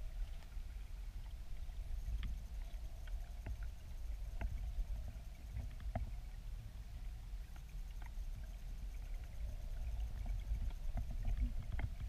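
Steady, muffled low rumble of river current heard underwater through the camera's housing, with scattered faint ticks.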